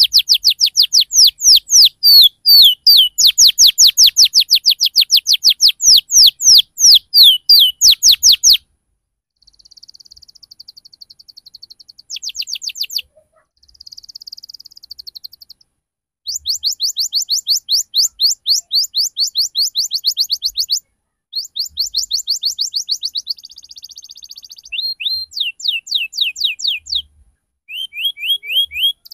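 Domestic canary singing a rolling song: long runs of rapid, evenly repeated down-slurred whistled notes, about four a second, broken by short pauses and softer twittering passages. The longest and loudest run lasts about eight seconds.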